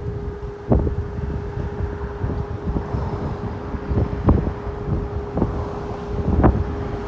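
Strong wind buffeting the microphone in a low rumble, with sharp gusts hitting it about a second in, near the middle and near the end. A steady hum runs underneath.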